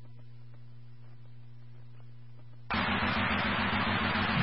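Police scanner: a faint steady hum between transmissions, then about two and a half seconds in a channel opens with a loud burst of radio static hiss and no clear words.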